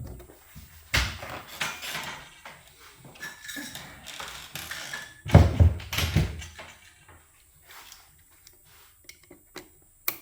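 Knocks, clicks and clatter of hands and a small screwdriver working on the plastic and metal casing of a Breville Barista Express espresso machine as a clipped cover is pried loose. The heaviest thumps come about halfway through.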